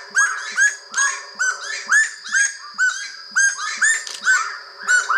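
Bird calls: a continuous run of short chirped notes, about two strong notes a second, with other notes overlapping between them.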